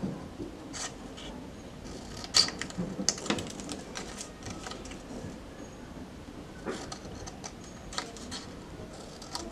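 Scissors snipping into a sheet of card, cutting out triangles: a string of irregular sharp snips, the loudest about two and a half seconds in.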